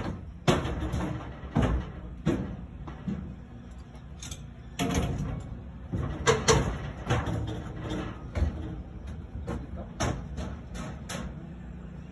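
Irregular metal knocks and clanks, many sharp hits at uneven spacing with rougher scraping noise between them, from repair work on the steel seat of an amusement boat ride.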